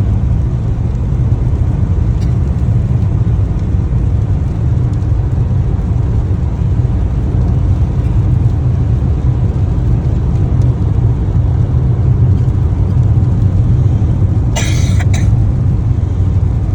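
Steady low rumble of a car being driven. Near the end a person gives a short double cough.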